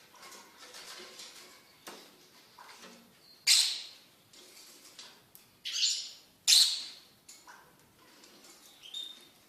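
Fischer's lovebirds calling: soft scattered chirps, with three loud shrill calls, the first about three and a half seconds in and two more close together about two to three seconds later.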